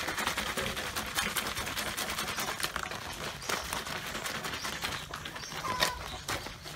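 A hand swishing and scrubbing through thick soap foam and water in a plastic basin: a dense run of small wet clicks and splashes, the lather of a homemade liquid laundry soap being worked up.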